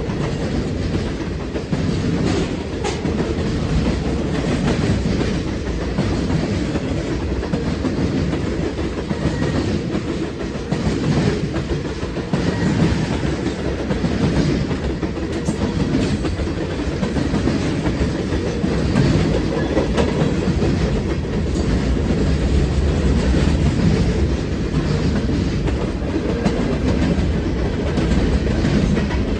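CSX freight train rolling past, its wheels making loud track noise on the rails: a steady heavy rumble with scattered clicks.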